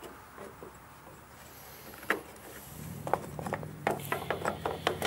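Small parts being handled during a mower repair: quiet at first, a single sharp click about two seconds in, then a quick run of clicks and knocks through the last two seconds.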